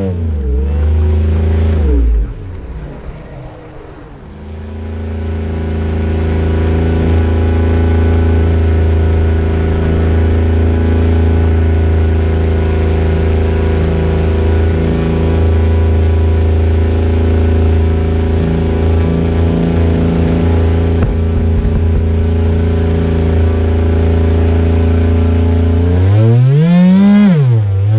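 Radio-controlled model boat's motor heard from on board, running at a low, steady throttle with a constant pitch. At the start the pitch drops and the sound fades for a couple of seconds, then it picks up and holds; near the end it rises sharply and falls again in a short burst of throttle.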